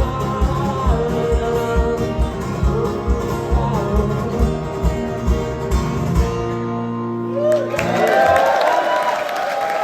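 A live band plays an instrumental ending with plucked strings over a steady drum beat, which stops about six and a half seconds in and leaves a final held chord. About a second later, audience applause and cheering start.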